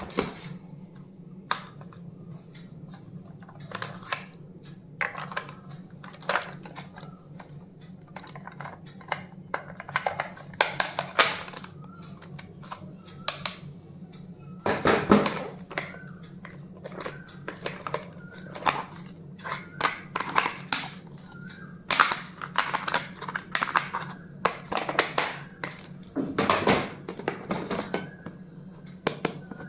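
Irregular clicks, taps and rustles of stationery and packaging being handled and unpacked, over a steady low hum.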